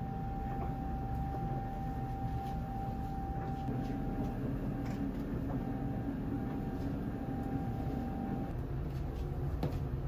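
A steady low machine rumble with a thin high whine that breaks off and comes back before stopping near the end, and a few light clicks.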